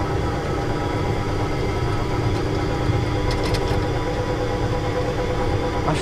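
Steady hum and low rumble of a tractor-ride car running along its guided track, its pitch holding constant.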